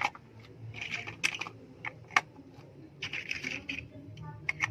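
Plastic LEGO bricks being handled and snapped together: several sharp clicks and short bursts of light rattling.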